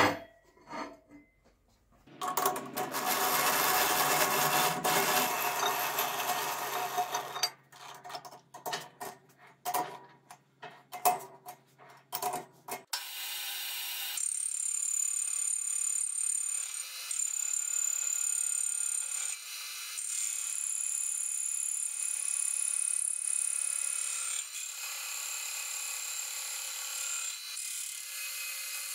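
A sharp metal clank, then a power tool running steadily for about five seconds and in short bursts. From about fourteen seconds in, a metal lathe runs steadily with a high whine as a tool cuts a disk out of a sheet-metal blank.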